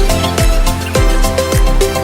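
Background electronic dance music with a steady, punchy kick drum beat under a synth melody.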